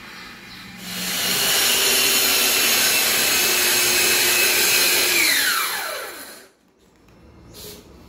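Bosch handheld circular saw starting up about a second in and running steadily as it cuts along the edge of a flush door. After about five seconds it is released and its whine falls as the blade spins down.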